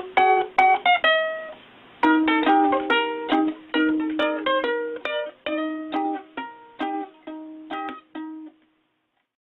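Background music played on a plucked string instrument: a run of picked notes that pauses briefly about two seconds in, then picks up again, slows and fades out, stopping shortly before the end.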